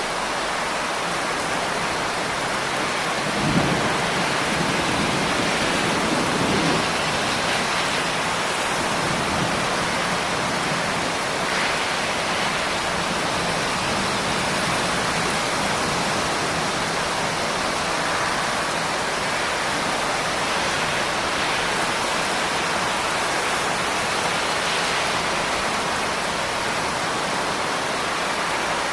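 Steady rain pouring down in an even hiss. A low rumble of thunder rolls in about three and a half seconds in and fades out a few seconds later.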